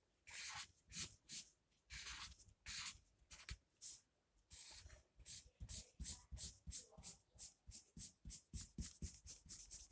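Felt-tip marker scratching across paper in colouring strokes. The strokes are longer and spaced out at first, then about halfway through turn into quick, even back-and-forth strokes, three or four a second.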